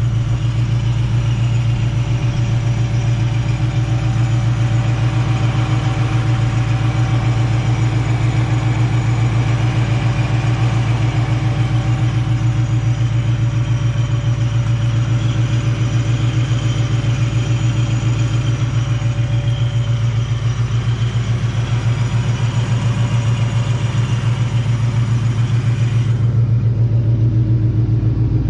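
Ford Mustang fitted with a Borla ATAK cat-back exhaust, idling steadily with a deep, even exhaust note.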